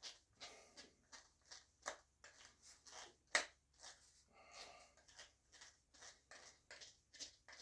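Faint, irregular clicks and scrapes of small tool parts being handled and fitted by hand, with one sharper click about three and a half seconds in. No motor is running.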